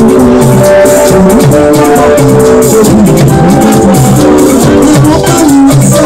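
Loud church worship music: voices singing over held notes, with a fast, steady rattle-and-drum percussion beat.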